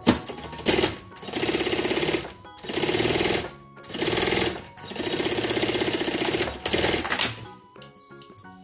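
Industrial sewing machine running in bursts of about one to one and a half seconds, stopping and starting again four times, as it stitches a synthetic binding strip onto mesh fabric. Two short bursts come near the start and near the end.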